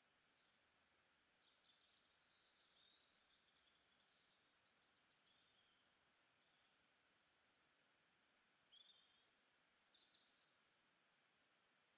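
Near silence: a faint steady hiss with scattered faint, high bird chirps, in two brief bunches.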